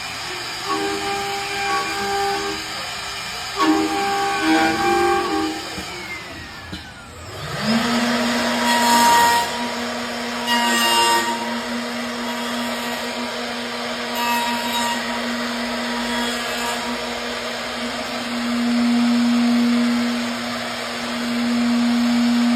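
CNC wood router at work: short stepped motor tones as the machine moves, then about seven seconds in the spindle spins up and settles into a steady hum, with bursts of cutting noise as it works the wood.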